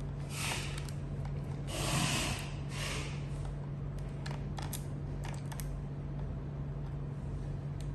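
Hands working on a plastic model helicopter body with a screwdriver: three short rustling, scraping sounds in the first three seconds, then scattered small clicks and ticks.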